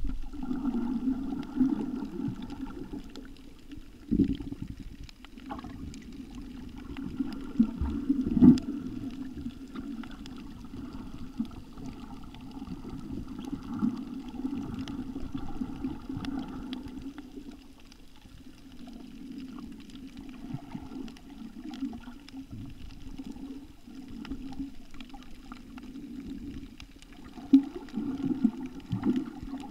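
Muffled underwater noise heard through a submerged camera: water churning and gurgling, with dull knocks about four and eight seconds in and a choppier stretch near the end.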